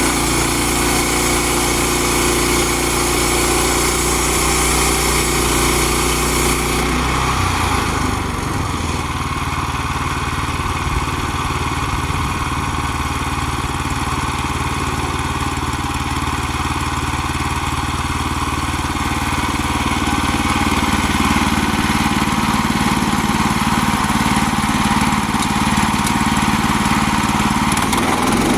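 Small gasoline engine of a Woodland Mills HM122 bandsaw sawmill running steadily while milling lumber. Its note changes about seven seconds in and again near the end.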